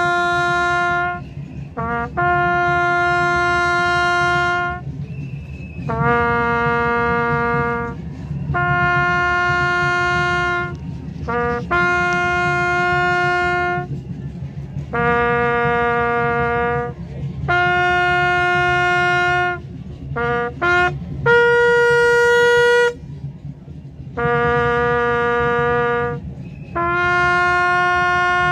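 A soldier's trumpet playing a slow ceremonial call as a salute at a wreath-laying. It plays long held notes, each led in by a short quick pickup note, with brief breaks between them.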